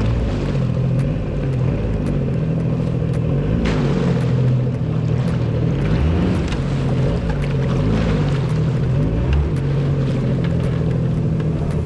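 Jet ski engine running, its pitch rising and falling again and again as the throttle is worked.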